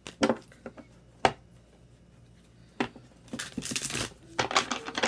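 A deck of tarot cards being shuffled by hand: a few sharp card slaps, then a longer stretch of rustling shuffling in the second half.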